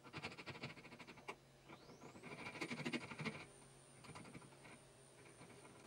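Rapid small metallic clicking and scraping in two runs, from hands working the fittings at the top of an ATRS AccuMaxx reloading press as it is reset from long stroke to short stroke.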